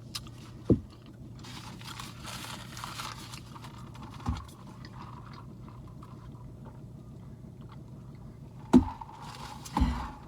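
Close-up eating of a burrito: biting and chewing mouth noises with a few short knocks from handling the food, over a steady low hum.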